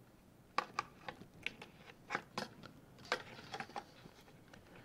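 A dozen or so light, irregular clicks and taps of crescent wrenches on the nut of a cable strain relief as it is tightened onto the printer's wiring whip.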